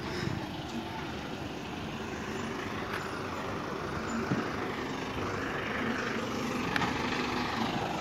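Motor vehicle engine running with steady road-traffic rumble, growing a little louder through the seconds.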